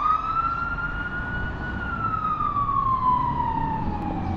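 Fire truck siren sounding one long wail that holds near its top pitch for about a second and a half, then slowly falls, over a low engine and traffic rumble.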